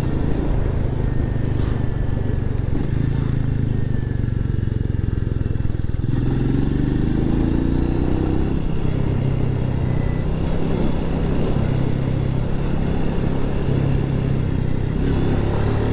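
Royal Enfield Meteor 350's single-cylinder engine running steadily while the motorcycle cruises along the road.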